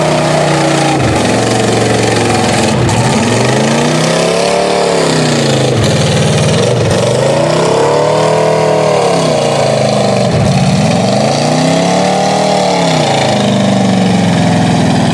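Square-body Chevrolet pickup's engine revving up and down again and again as the truck churns through deep mud, each rev rising and falling over a couple of seconds.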